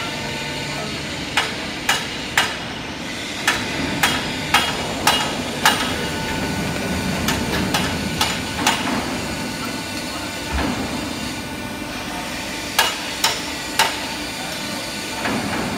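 W28K-89 pipe bending machine running with a steady hum, broken by groups of three or four sharp knocks about two a second.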